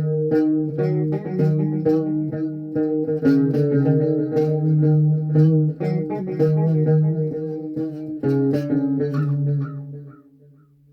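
Electric guitar tuned to C-sharp standard playing a riff: picked notes over a held low note, which dies away about ten seconds in.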